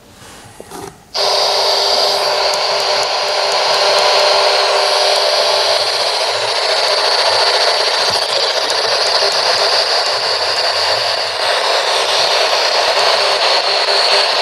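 P-SB11 spirit box switched on about a second in, its radio sweep filling the air with a steady, loud hiss of white noise from the speaker.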